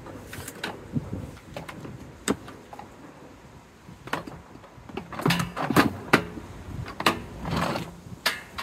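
Scattered clicks, knocks and scrapes of the plastic parts of a DeWalt DXV38S wet and dry vac being handled, with the vacuum switched off. The sounds come thicker from about five seconds in.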